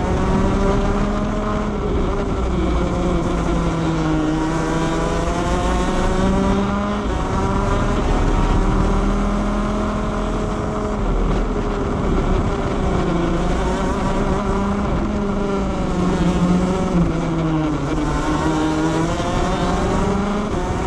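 Onboard a 125cc two-stroke shifter kart at racing speed. The engine's pitch climbs and falls as it accelerates and brakes, dropping about four seconds in and again near the end.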